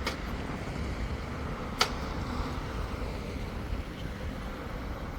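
Outdoor ambience dominated by a steady low rumble of wind on the microphone, with one sharp click a little under two seconds in.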